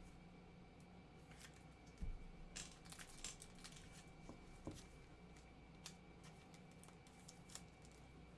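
Faint crinkling and tearing of a foil trading-card pack wrapper as cards are handled, with a soft knock about two seconds in and a short run of crackles just after.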